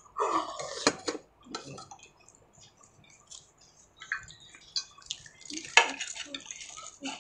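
Wooden chopsticks clicking and scraping against steel bowls while pani puri are picked up and eaten, with wet eating noises in between. A sharp click comes about a second in and a louder one near the six-second mark.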